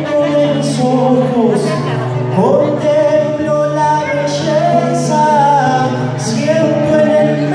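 A man singing a song while accompanying himself on acoustic guitar, amplified through a PA in a large hall.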